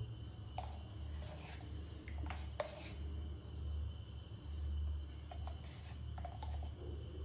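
A plastic measuring spoon scraping and tapping lightly against a plastic bowl as rice flour and gram flour are spooned onto a spice paste: a few faint clicks and rubs, scattered over a few seconds, over a steady low hum.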